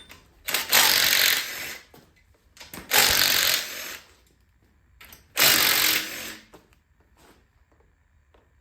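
Handheld power tool running in three short bursts of about a second each, a second or so apart, as fasteners are run out during an engine teardown.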